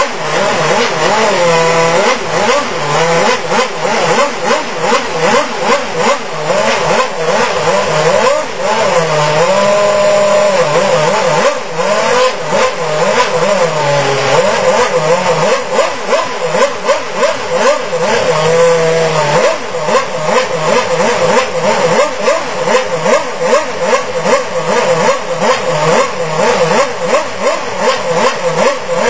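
Renault Formula One car's engine running stationary and revved up and down over and over, its pitch rising and falling in repeated swoops with quick regular throttle blips.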